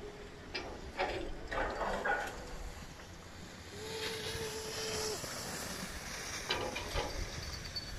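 Skis sliding and scraping over packed snow, a steady hiss that swells about halfway through, with a few faint short voice-like sounds early on and one held tone of about a second and a half in the middle.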